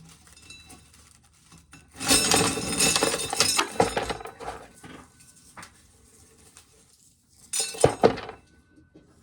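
Dry corn kernels rattling and clinking into a container as ears are shelled: a dense shower of small clicks for about two seconds, then a shorter burst near the end.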